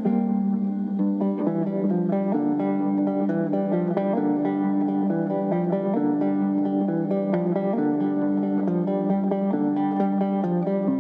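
Background music: plucked acoustic guitar playing a run of notes.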